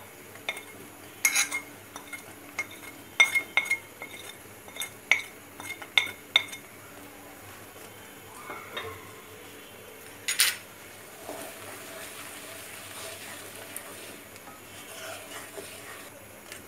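A spoon taps and scrapes ground spices off a ceramic plate into a pot of hot mustard oil, a quick run of sharp clinks over the first several seconds. Then a wooden spatula stirs the foaming oil, which bubbles with a faint sizzle.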